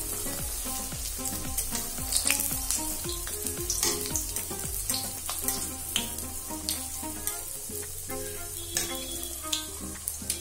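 Stuffed pastry deep-frying in hot mustard oil in an iron kadhai: a steady, dense sizzle broken by many sharp crackles and pops.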